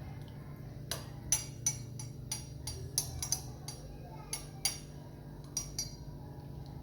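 A spoon clinking against a cup while stirring: about a dozen light, sharp taps at uneven intervals, over a low steady hum.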